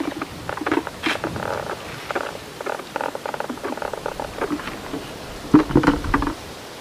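Black plastic bucket being carried, its handle clicking and creaking as it swings, then louder knocks as the bucket is set down about five and a half seconds in.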